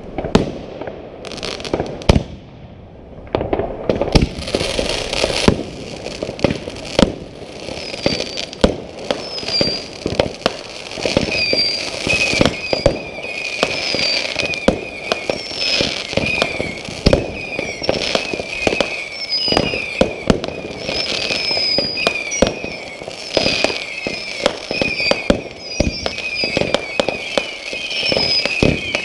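Fireworks going off in quick succession: many sharp bangs and crackling bursts. From about eight seconds in, a high warbling chirp repeats over them every second or so.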